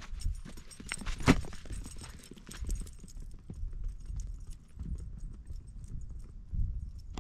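Rhythmic footfalls on gravelly desert ground, with one sharp knock just over a second in, then a low rumble of wind on the microphone.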